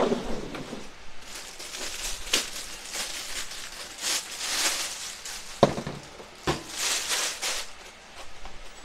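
Thin plastic bag crinkling and rustling in several bursts as it is pulled off and handled, with two short light knocks about two thirds of the way through.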